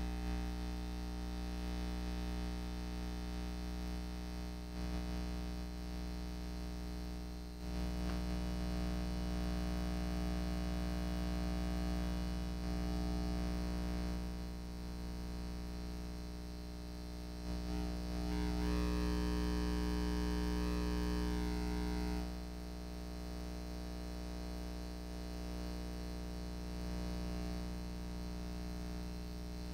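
Music with held synthesizer chords over a deep bass drone, the chord changing a few times and swelling loudest a little past the middle.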